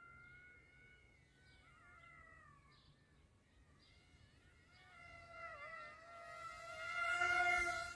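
Small FX-620 electric RC airplane in flight, the thin whine of its motor and propeller wavering up and down in pitch. It grows louder near the end as the plane comes closer.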